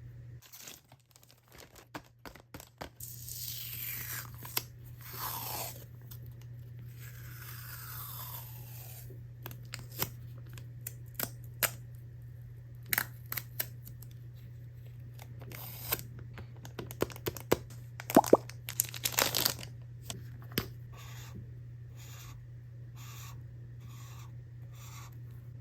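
Packaging being torn open and handled by hand: two long tearing rips with a falling pitch, then scattered clicks and crinkles of plastic, and a row of about eight evenly spaced light taps near the end.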